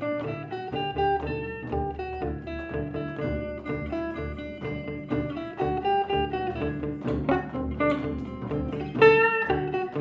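Improvised instrumental music on plucked string instruments, guitar-like, playing a run of quick single notes over a held bass, with a loud struck chord about nine seconds in.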